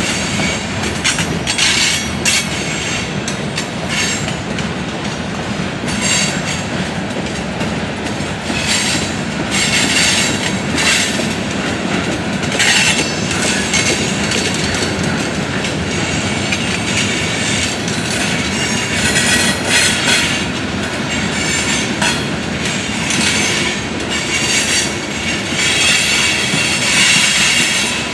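Freight cars of a long mixed freight train rolling past: a steady rumble of steel wheels on rail, with clicks over the rail joints and repeated short bursts of high wheel squeal.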